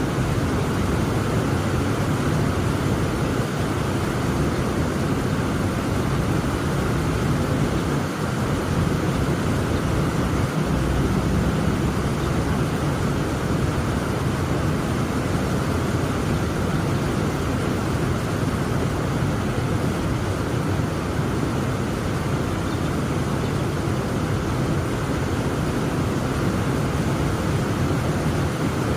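Heavy rain falling steadily: a dense, even noise with most of its weight in the low range.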